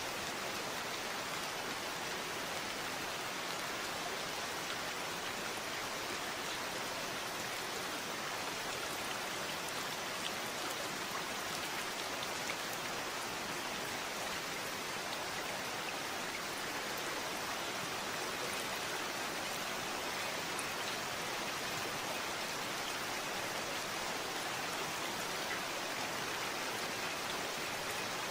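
Steady rain falling, an even hiss with faint individual drops ticking through it.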